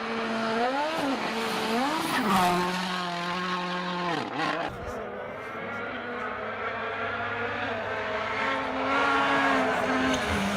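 Rally car engine revving hard, its pitch climbing and falling with gear changes. About four and a half seconds in it drops sharply, then holds a steadier, lower note.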